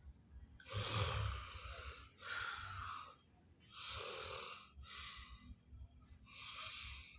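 Snoring: five rasping breaths in a steady rhythm, about one every second and a half, with the first the loudest.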